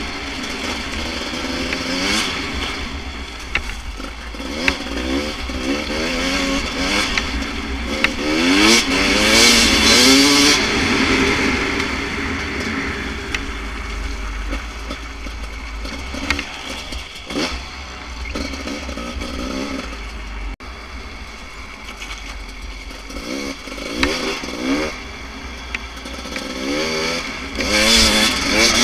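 Beta RR 300 enduro bike's single-cylinder two-stroke engine through a full FMF exhaust, revving up and down over and over as it is ridden. The loudest rises in pitch and level come about nine seconds in and again near the end.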